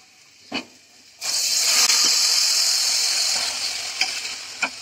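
Boiled black chickpeas (kala chana) with some of their cooking liquid hitting hot oil and masala in a steel kadhai: a sudden loud sizzle about a second in that slowly dies down. A ladle clinks once before it, and a spatula taps the pan twice near the end.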